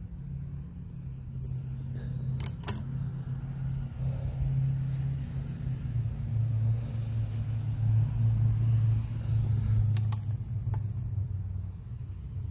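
A steady low engine hum that drops slightly in pitch about halfway through, with a few light clicks.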